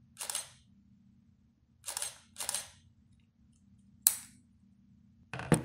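Camera shutter clicks, about five, at irregular intervals, each short and sharp. A faint low hum runs underneath.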